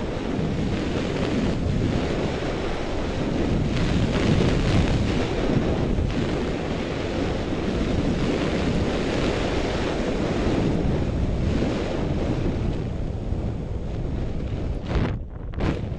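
Wind buffeting the microphone of a goggle-strap-mounted action camera while skiing downhill, mixed with the hiss of skis sliding over packed, groomed snow. Two brief louder surges come near the end.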